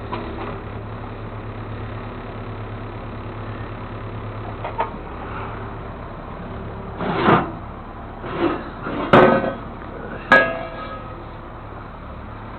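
Engine idling with a steady hum, with a run of metal clanks and knocks in the second half; the last two ring briefly like struck steel.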